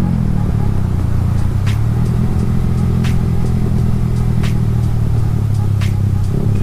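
Yamaha R15 V3's single-cylinder engine running at a steady cruise, with wind and road noise over it. A faint click recurs about every second and a half.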